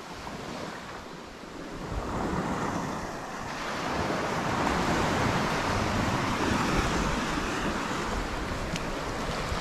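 Wind buffeting the microphone over waves washing onto the beach, getting louder about two seconds in and holding steady from there.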